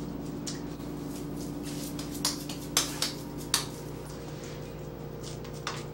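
Several sharp clicks and light taps, scattered and irregular, over a steady low electrical hum. These are the small sounds of hands and kitchenware handling sticky nut-burger mixture while shaping it into patties.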